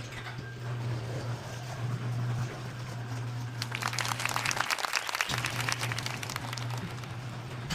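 Garage door opener motor running with a steady hum, the door rattling and clicking as it travels. The hum stops for about half a second midway, then starts again.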